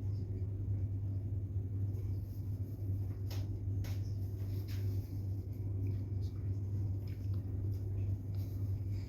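Harbor Breeze Centerville ceiling fan running, its motor giving a steady low hum, with a few faint ticks a few seconds in.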